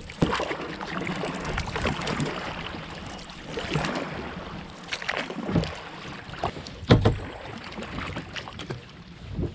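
Kayak on the water: paddle strokes splashing and dripping, with several hollow knocks against the hull, the loudest about seven seconds in.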